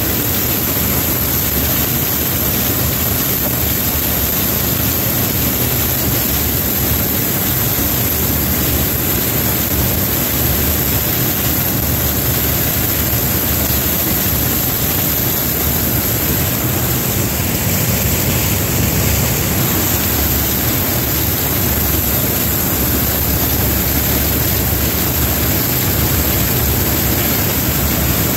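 Combine harvester running steadily at work in a corn field, its engine and machinery making an even, loud drone.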